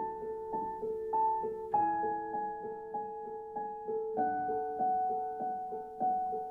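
Background music: a soft piano melody, notes struck at a gentle steady pace with the chord changing every couple of seconds.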